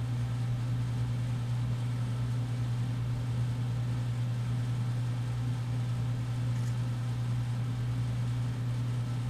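Steady low machine hum with a faint hiss from a human centrifuge standing idle at about 1 G, before its arm starts spinning.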